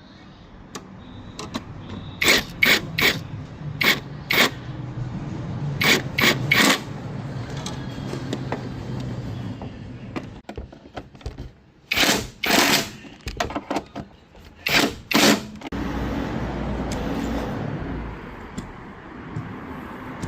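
Car windshield wiper mechanism running with a low motor hum and loud sharp clacks in groups of two or three, the loud wiper noise that is the fault being looked at. A steady low rumble takes over for the last few seconds.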